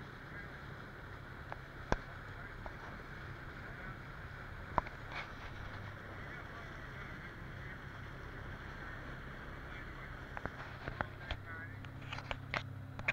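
A small fishing boat's engine running steadily under way, under a constant rush of water and wind over the hull. A few sharp knocks break through, more of them in the last few seconds.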